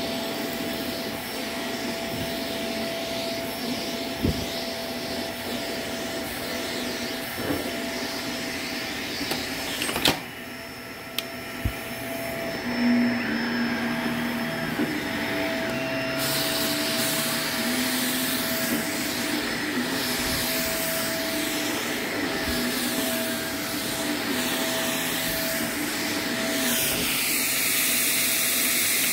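Shark upright vacuum cleaner running steadily on a thick shag rug, its motor giving a constant whine. A sharp click comes about ten seconds in.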